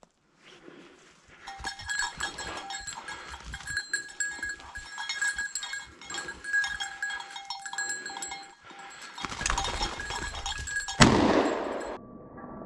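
Bell on a hunting dog's collar ringing in irregular jangles as the dog moves through the undergrowth. A single loud knock comes near the end.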